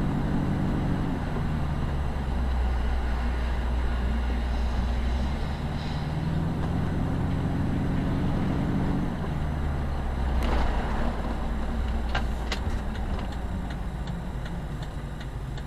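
Car engine and road noise heard inside the cabin while driving, the engine note rising and falling with speed. A few sharp clicks come about two-thirds of the way in, and near the end a turn signal starts ticking steadily.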